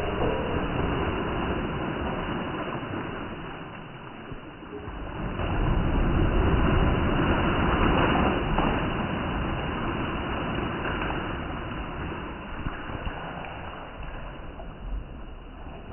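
Water splashing and churning in a brick-lined well after a rope-tied water pot plunges in. The splashing fades, swells again for a few seconds, then slowly dies away as the surface settles.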